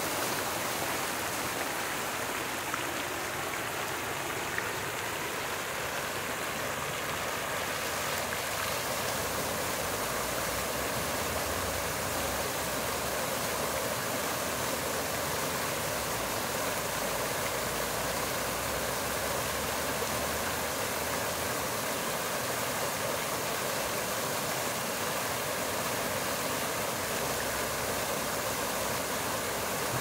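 Fountain water splashing steadily: several vertical jets falling back into the basin in an unbroken rush.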